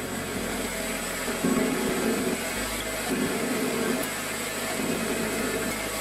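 Small metal lathe running, its turning tool cutting a metal rod held in the three-jaw chuck: a steady motor hum under the rough noise of the cut.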